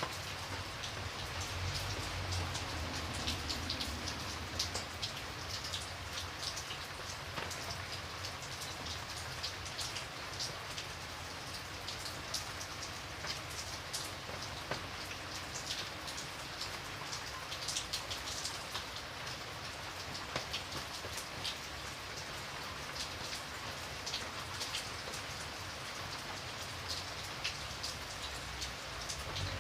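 Steady rain falling on a hard surface, a continuous hiss dense with sharp individual drop clicks.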